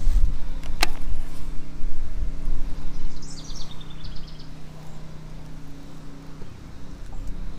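Steady low electric hum from the bass boat, with wind rumbling on the microphone for the first few seconds. A sharp click comes about a second in, and a quick high trill of a dozen or so notes, falling in pitch, comes around the middle.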